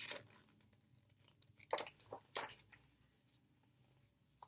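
Faint paper rustles as a picture book's pages are handled and turned: a few short crinkles, the clearest about two seconds in.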